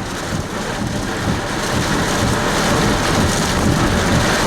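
Heavy rain with gusting wind during a tornadic supercell: a steady noisy rush that grows a little louder as it goes.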